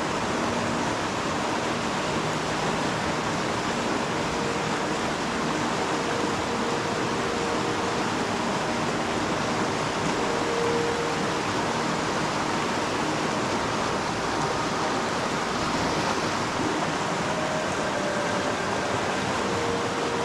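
Flowing river water, a steady even rush that holds unchanged throughout.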